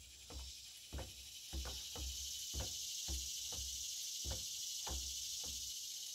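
Steel barrel-tumbler frame turning with a plastic drum in it, giving a series of light knocks and clunks about one or two a second as the barrel shifts and bumps in the frame. Behind it is a steady high insect buzz that swells about a second and a half in.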